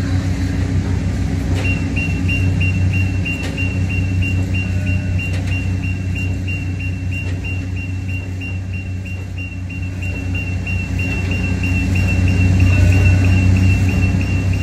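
Light-rail train recorded on location: a steady low rumble, joined about two seconds in by a high beeping that repeats about three times a second, growing louder near the end.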